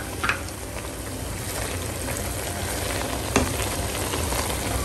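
Jollof rice sizzling in a pot as sliced onions are stirred into it with a wooden spoon, with a steady hiss and two sharp knocks of the spoon against the pot.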